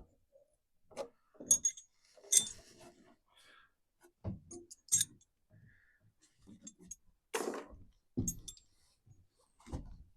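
Small metal hardware, bolts and latch parts, clinking and knocking as it is handled: several sharp clinks spread through, with a few duller knocks between.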